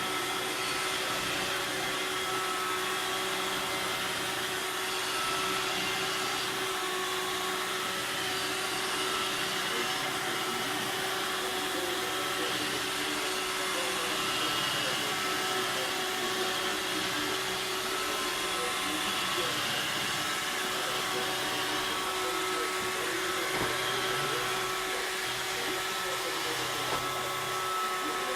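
Robot vacuum cleaner running steadily, a constant motor and suction hum with a fixed whine.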